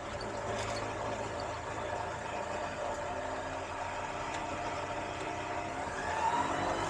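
Ikarus C42 microlight's engine running steadily, its note rising slightly near the end.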